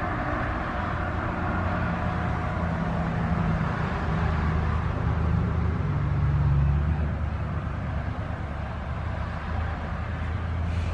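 A steady low rumble, swelling around the middle and easing off toward the end.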